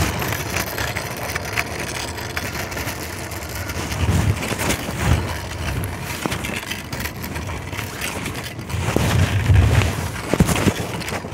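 Fabric rubbing against a phone microphone in a pocket: rustling, crackling scrapes with scattered clicks, and dull low thumps about four seconds in and again near the end.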